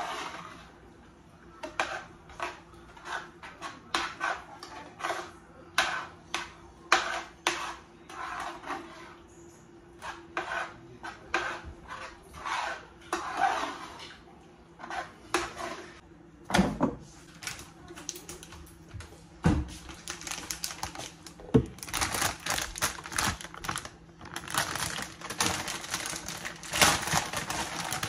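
Spatula scraping and clacking against a nonstick sauté pan as food is stirred: a quick, irregular run of scrapes and taps, with a few heavier knocks after the middle.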